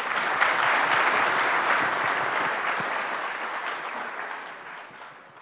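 An audience applauding, loudest in the first couple of seconds and then gradually dying away.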